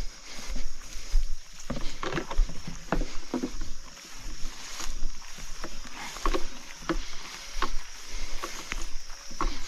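Footsteps wading through a flooded marsh, water and wet vegetation splashing with each uneven step.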